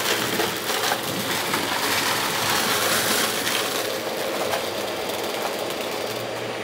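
Dirt Devil stick vacuum running with its brush roll crunching and crackling as it sucks up small hard bits of debris from a rug, over the steady hum of the motor. The crunching is densest in the first three seconds or so, then thins a little.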